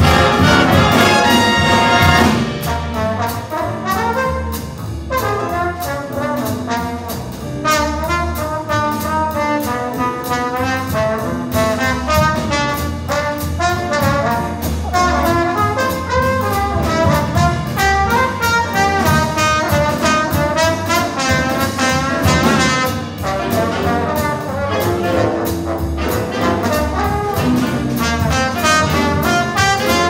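Jazz big band playing, with two trombones featured out front over drums, upright bass, guitar, saxophones and trumpets. A loud full-band passage drops to a quieter texture about two seconds in.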